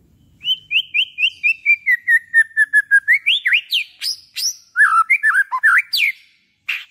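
A white-rumped shama (murai batu) singing loudly. It opens with a quick run of about a dozen short slurred notes that step steadily down in pitch, then breaks into varied whistles sweeping up and down, with a brief pause near the end.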